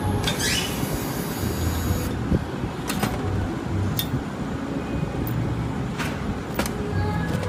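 Power drill driving a screw into a tablet press's metal frame, its motor whine rising over the first two seconds, then several sharp metallic clicks, over a steady low rumble.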